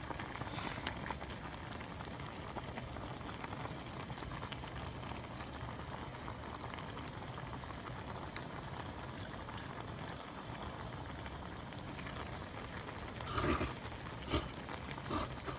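A pot of sukiyaki simmering steadily, with a bubbling hiss and small ticks. A brief louder knock or clink about thirteen seconds in.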